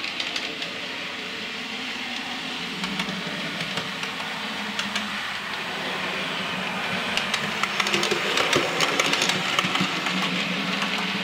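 An OO gauge model green diesel multiple unit running on model track: a steady motor and wheel running noise with clicking over the rail joints. The clicking grows louder and busier in the second half.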